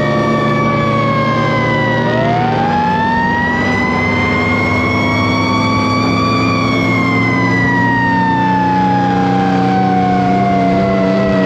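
Fire truck sirens winding up and down, two overlapping. One falls through the first two seconds while another winds up about two seconds in, holds, and slowly falls away over the last five seconds. Under them runs the steady drone of a two-stroke 8V71 Detroit Diesel V8.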